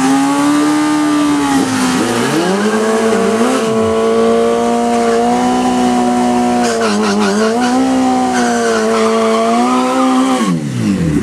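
Drag-racing sportbike doing a burnout: the engine is held at high revs while the rear tyre spins and squeals, the revs dipping a few times, then falling away quickly near the end.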